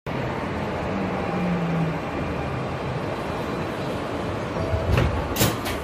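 Steady hum and rush inside an R160B subway car standing at a station, with a few sharp knocks a little after halfway.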